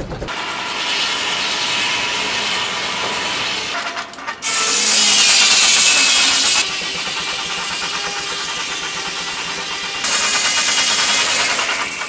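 Circular sawmill blade powered by a steam tractor, cutting through a log: a steady hissing rasp, much louder and harsher in two stretches, from about 4.5 to 6.5 seconds in and again around 10 to 12 seconds in.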